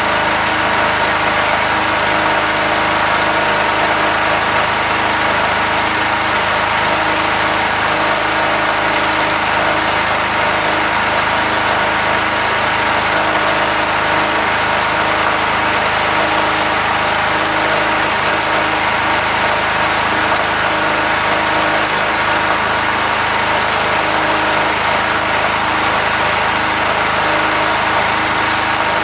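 Multipro GG 3900 portable generator engine running steadily under the load of an inverter stick welder, with the welding arc sizzling. The engine holds an even note without hunting.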